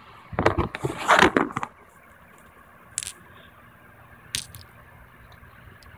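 A bag being rustled and handled close to the microphone as small toy accessories are packed into it, a loud crinkly burst lasting over a second, followed later by two single sharp clicks.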